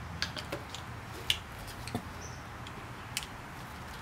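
Irregular sharp metallic clicks and ticks of a steel C-clip and snap ring pliers being worked onto the end of an OEM Toyota Tacoma CV axle shaft, the loudest about a second in. The clip is fighting and not yet seated in its groove.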